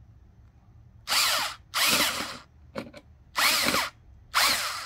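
Cordless drill running in four short bursts, each under a second with its pitch rising and falling, as it backs out the screws holding the air filter to its housing. A few light clicks come between the bursts.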